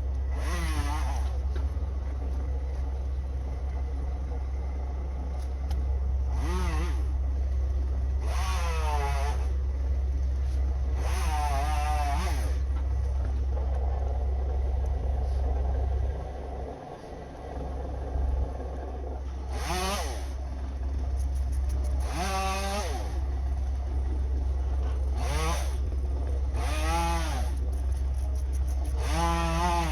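A chainsaw revs up and back down again and again, about nine times, each rev lasting roughly a second, over a steady low rumble.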